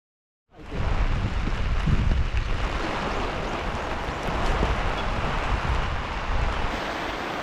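Strong wind gusting and buffeting the microphone, a loud rumbling rush that sets in suddenly about half a second in and swells and eases in gusts.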